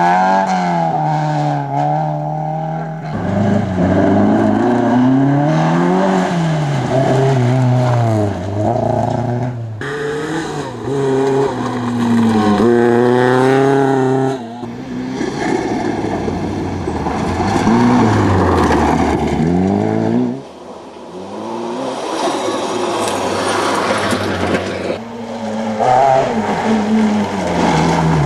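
Historic rally cars at race pace on a gravel stage, passed one after another: engines revving up and dropping through gear changes, with tyres and spraying gravel hissing. It opens with a BMW 2002 and ends with a Lancia 037's supercharged four-cylinder.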